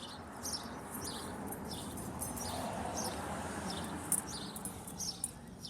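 A bird chirping repeatedly, short high chirps about twice a second, over a steady rushing background noise.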